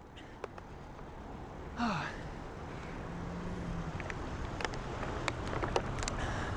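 A man sighs once about two seconds in, a short falling voiced exhale, over a low background rumble that grows steadily louder, with scattered light clicks.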